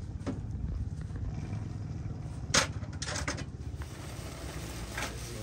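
Low, steady rumble of motocross bike engines running, with a sharp click about two and a half seconds in and a few fainter clicks after it.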